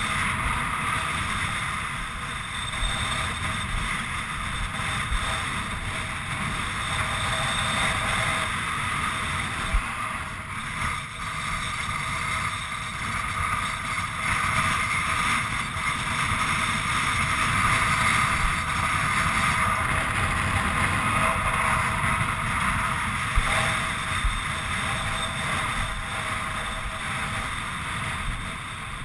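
Wind buffeting the microphone of a body-worn action camera: a steady, loud rushing and rumbling, with a couple of faint knocks.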